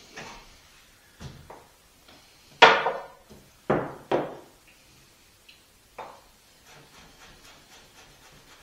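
A few sharp knocks of a ceramic bowl and utensils set down and moved on a wooden cutting board, the loudest about two and a half seconds in. From about six and a half seconds, a kitchen knife chopping on the wooden board in quick, light taps.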